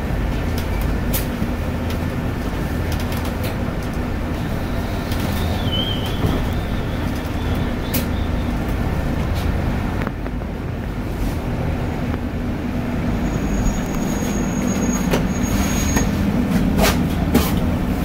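Cabin noise of a BYD electric bus under way: a steady low rumble and hum, with scattered clicks and rattles.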